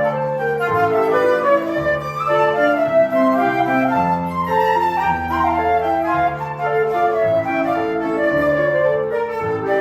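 Two flutes playing a duet in interweaving melodic lines over a sustained low accompaniment, probably piano.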